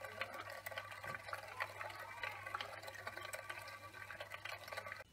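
Magnetic stirring hotplate running under a glass beaker of sodium hydroxide and sulfur solution: a steady low hum with a dense crackle of small ticks over it. The sound cuts off abruptly at the end.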